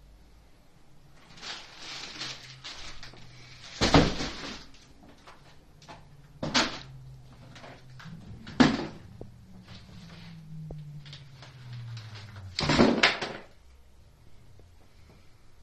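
Hands rummaging at a cardboard box: rustling at first, then four sharp knocks and clatters of things being handled and set down, the last one doubled.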